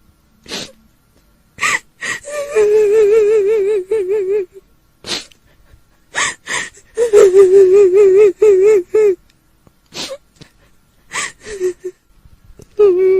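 A woman's voice crying as a kuntilanak ghost. Long quavering wails, each held about two seconds on one trembling pitch, alternate with sharp, sobbing gasps for breath.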